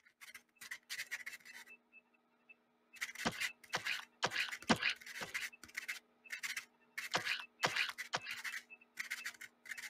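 Pen scratching on paper on a clipboard, writing in short quick strokes, with a pause about two seconds in before the strokes come thicker.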